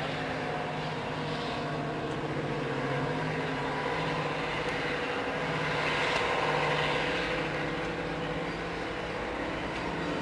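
Class 55 Deltic diesel locomotive 55022 'Royal Scots Grey' running its twin Napier Deltic two-stroke engines: a steady, many-toned engine drone. It grows louder about six seconds in as the engines open up and exhaust smoke rises from the roof.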